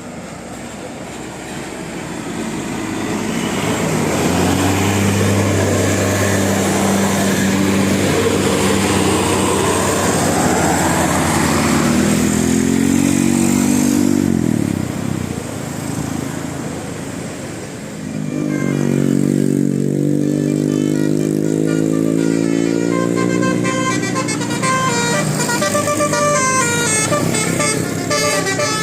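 Buses driving past. A bus engine builds up and drops in pitch as it passes about halfway through, then another bus approaches with its engine climbing. Near the end a multi-tone telolet horn plays a quick run of short notes.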